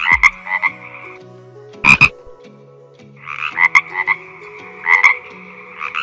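Frog croaking: short pulsed croaks in clusters of two or three, repeating every second or so, with one louder, sharper call about two seconds in.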